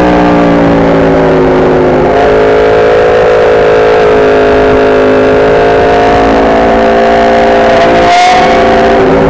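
Aprilia RSV4's V4 engine running hard, very loud, its note sagging a little and then climbing steadily as the bike accelerates, with a brief cut about eight seconds in at a gear change, over rushing wind noise.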